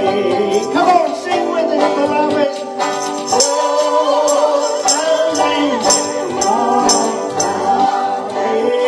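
A man and a woman singing together to a strummed banjo, with a tambourine jingling on the beat about twice a second, loudest in the middle.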